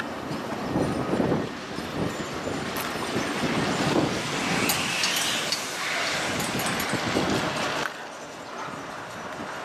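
Rumbling noise of passing vehicles, with scattered clicks. It drops abruptly to a lower level about eight seconds in.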